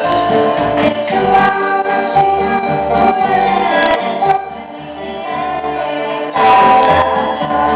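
Children singing a Christian worship song live, accompanied by a nylon-string classical guitar and an electronic keyboard. The music softens a little past the middle and swells louder again near the end.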